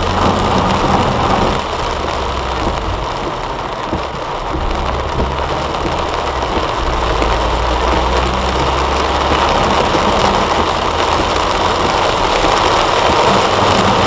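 Heavy rain pounding on a car's windshield and roof, heard from inside the cabin, over the low steady drone of the car's engine and tyres on the wet road.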